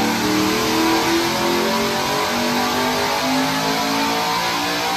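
Retired NASCAR stock car's V8 engine running hard on a chassis dynamometer, at a detuned 650 horsepower. Its note rises in pitch, falls back about two seconds in, then climbs again.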